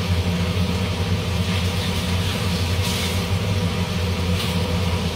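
Kitchen cooker-hood extractor fan running with a steady low hum, and a couple of faint light ticks in the middle.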